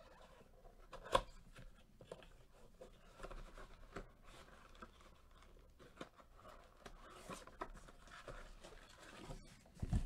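Cardboard blaster box of trading cards being opened and handled: rustling, scraping and tearing of cardboard with small clicks, and foil card packs crinkling as they are drawn out. A sharp snap about a second in and a dull thump near the end.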